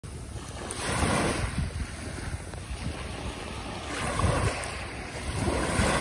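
Small waves washing up over a sandy beach and running back, the surf swelling about every two to three seconds.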